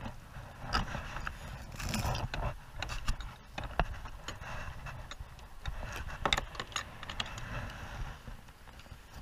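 Handling noise as a caught fish is unhooked and fishing tackle is worked in a kayak: scattered clicks and knocks, the sharpest about 2, 4 and 6 seconds in, over a steady low rumble.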